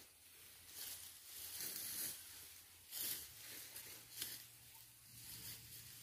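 Faint rustling and tearing of sweet potato vines and leaves as they are pulled up and the soil is dug with a small hand tool, in a handful of short scratchy rustles.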